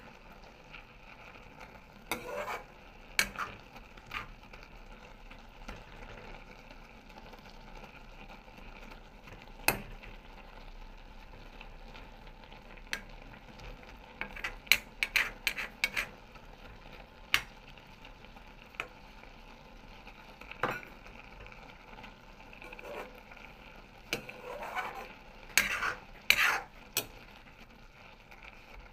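A metal spoon stirring shredded cabbage in a stainless-steel kadai, scraping and clinking against the pan in short clusters. Under it runs a faint steady sizzle as the last of the cooking water dries off.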